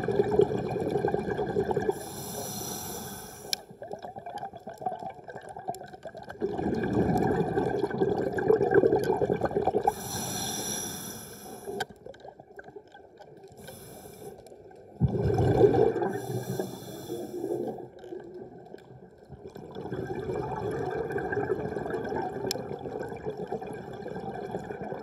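Scuba diver's slow breathing underwater: long stretches of low rushing alternate with shorter high hisses, one breath cycle about every six to eight seconds.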